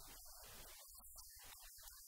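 Near silence, with a faint, broken-up man's voice.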